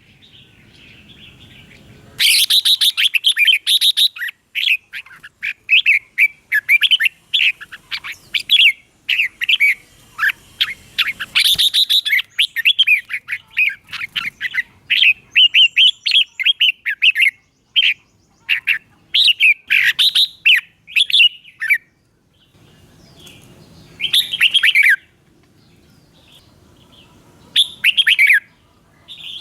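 Red-whiskered bulbul singing: quick runs of short, bright, chirpy whistled notes, almost unbroken for most of the stretch, then two short separate phrases near the end.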